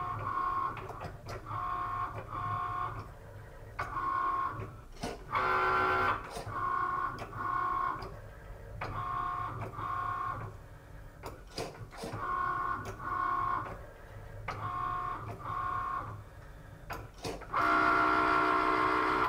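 Cricut Maker cutting machine at work, its motors whirring in short, steady-pitched bursts, often two in a row, with small clicks between them. A louder whir comes about six seconds in, and a longer, louder one near the end.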